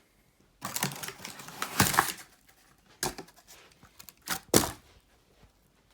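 Packaging and vacuum parts being handled during unboxing: a stretch of rustling and crinkling early on, then a few sharp clicks and knocks a couple of seconds later.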